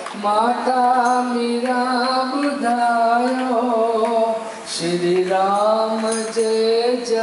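Sindhi devotional bhajan being sung, with long held notes that slide and bend between pitches.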